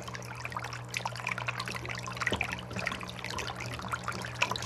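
Aquarium powerhead running submerged in a basin, its outflow splashing and churning at the water surface over a steady low motor hum; it runs quietly without rattling, its impeller now turning on a replacement shaft made of a finishing nail wrapped in heat shrink tubing. Right at the end a thump, and the hum and splashing cut off suddenly.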